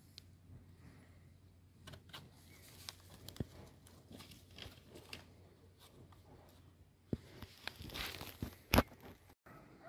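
Faint rustling and crackling of dry leaves and twigs on the forest floor, with scattered light snaps. It grows busier near the end, where one sharp crack stands out.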